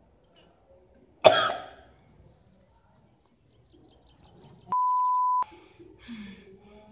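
A man coughs once, hard, about a second in, while gagging on a mouthful of frog. Near the end a flat electronic censor bleep of under a second replaces the sound.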